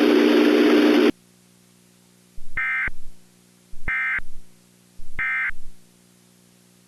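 A loud hissing noise with a low hum cuts off about a second in. Then come three short, identical bursts of warbling digital data tones, evenly spaced: the EAS end-of-message (SAME EOM) code that closes an Emergency Alert System warning.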